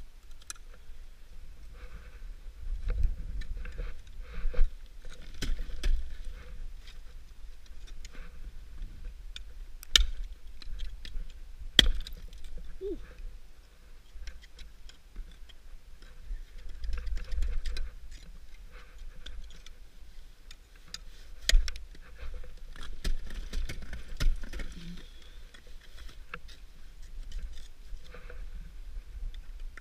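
Ice tools striking brittle frozen-waterfall ice. Sharp strikes come every few seconds, the loudest about ten, twelve and twenty-one seconds in, with smaller clinks of ice chips and climbing gear between them, over low rumbles on the microphone.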